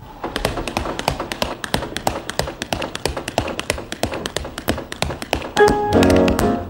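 Tap shoes striking a wooden stage in fast, dense, syncopated rhythms, with no accompaniment at first. About five and a half seconds in, a dance band comes in with held chords under the taps.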